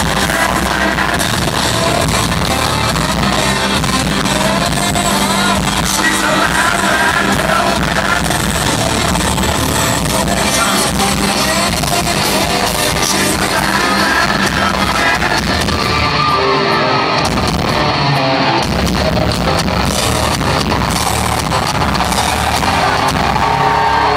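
Live rock band playing loud, with a lead singer over electric guitars and drums, recorded from the audience. The bass and cymbals drop out briefly about two-thirds of the way through, then the full band comes back in.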